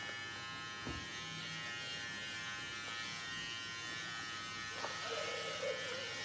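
Electric hair clipper running with a steady buzz while cutting a child's hair.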